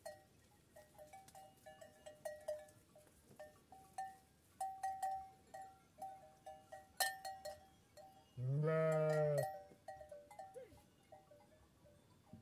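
Bells on a flock of Kangal sheep clinking irregularly as the animals move and feed. About two-thirds of the way in, one sheep gives a single loud, deep bleat lasting about a second.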